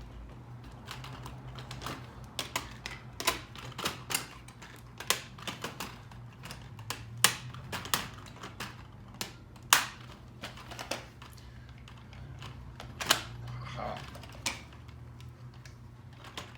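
Irregular sharp clicks and clacks of hard items being handled and set down on a work surface, with a low steady hum underneath. The loudest knocks come about 7 and 10 seconds in.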